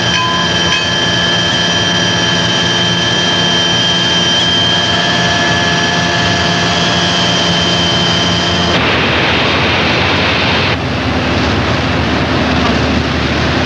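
Loud, steady turbine-like machinery running, a high whine over a low drone. About nine seconds in it changes to a harsher rushing noise, then settles into a steadier drone with a low hum.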